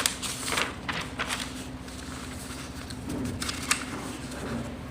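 Light handling noises: scattered short rustles and taps in the first second and a half and again near the end, over a faint steady hum.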